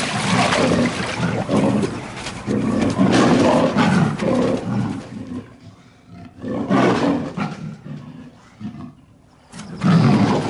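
Tiger roaring and growling in several long, low calls, loud in the first few seconds, again about seven seconds in, and once more near the end after a brief quieter gap.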